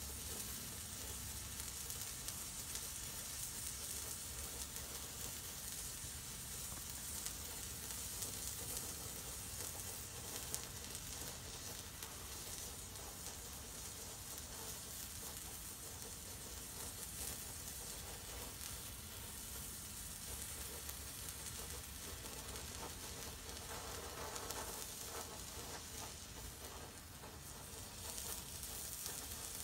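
A large homemade white flare of potassium nitrate, sulfur and flake aluminium burning with a steady hiss and sizzle, with a few small crackles.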